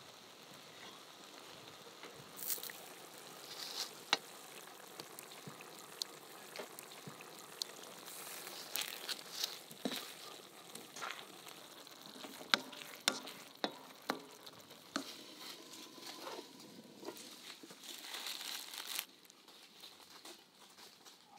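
Rice sizzling in a frying pan as hot stock is ladled over it, with scattered sharp clicks and taps from the ladle and pan. The sizzle drops away near the end.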